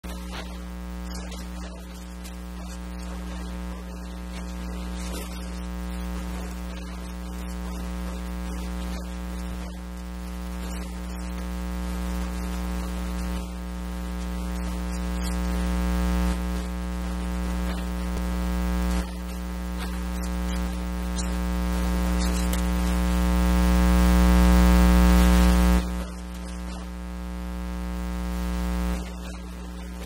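Electrical mains hum: a steady buzz with many evenly spaced overtones. It slowly swells in loudness, then drops back suddenly, several times over.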